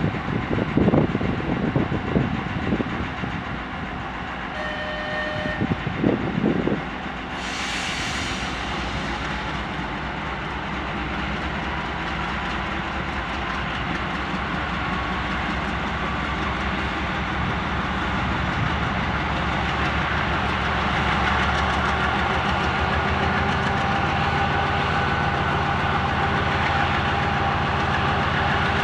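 GE C36-7i diesel locomotive pulling away with a freight train: couplers and buffers clank several times in the first seven seconds, a brief high tone sounds about five seconds in, and a burst of hissing air comes near eight seconds. Then the locomotive's 16-cylinder diesel drone builds steadily louder, its pitch rising slightly, as it takes up the load.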